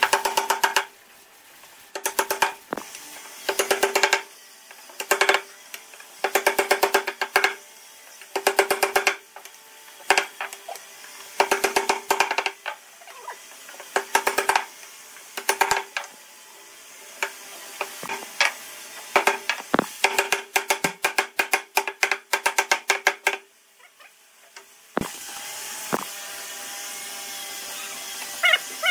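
A woodworking power tool clattering in short bursts of rapid knocks, with a steady hum during each burst, repeated about every second and a half. Near the end it stops briefly and a steady machine noise starts.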